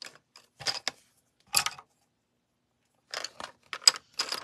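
Wooden coloured pencils knocking and clicking against each other and the table as they are put down and sorted through. There are a few separate knocks, then a quicker run of clicks near the end.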